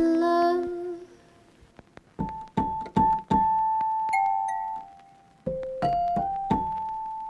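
Background music: a slow piano melody of single notes, each struck and left to ring, starting about two seconds in after a held chord fades away.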